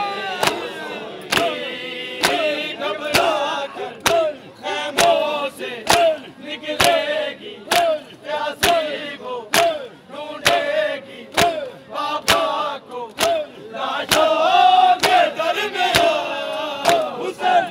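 Large crowd of men chanting loudly in unison, over a sharp slap that lands together on a steady beat a little faster than once a second.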